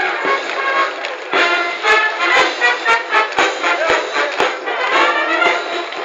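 Brass band music playing a march, with a steady beat of sharp strokes about twice a second.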